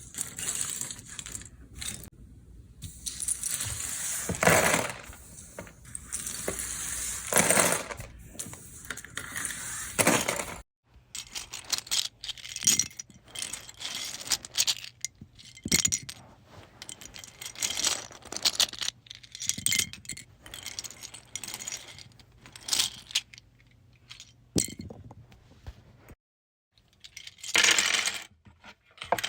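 Plastic Lego bricks clattering. For about the first ten seconds, handfuls are poured and slid into a bin in dense rattling runs. Then comes a series of separate handfuls dropped on carpet, duller and more scattered, with a louder clatter near the end as bricks land on a table.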